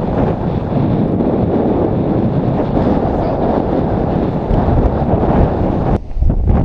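Strong wind buffeting the microphone: a loud, steady low roar, with a brief drop about six seconds in.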